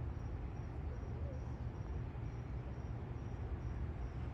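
An insect chirping steadily in a high, even pulse about twice a second, over a low steady outdoor rumble.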